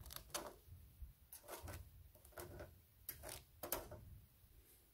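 Metal tongs clicking and tapping against a mini grill grate and toasting bread slices as the pieces are turned: a handful of light clicks over about four seconds.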